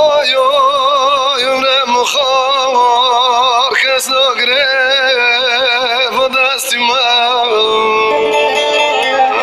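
Music with a singing voice holding long notes with wide vibrato over instrumental accompaniment.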